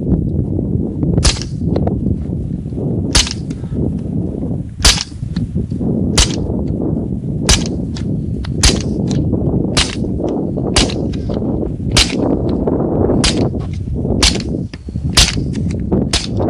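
Suppressed 9 mm pistol shots through a Huntertown Arms Guardian 9 suppressor: about thirteen sharp, muffled cracks fired one at a time, roughly one every second or so, over a steady low rumble.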